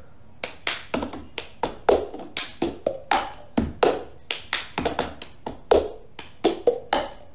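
Cup-game rhythm: hand claps and a plastic cup tapped and knocked on a wooden floor, a quick repeating pattern of sharp taps, about three or four a second.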